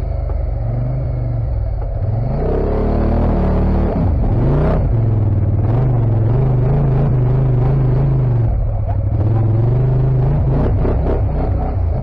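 ATV engine under way, revving up about two seconds in, dipping briefly near four seconds, then holding a higher, wavering pitch before easing off and picking up again near the end.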